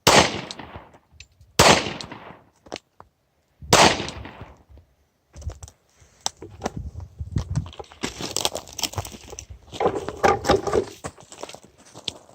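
Three handgun shots from a .40 S&W Glock 23, at the start, about a second and a half in, and about four seconds in, each with a short ringing tail. They are followed by several seconds of irregular clicking, knocking and rustling handling sounds.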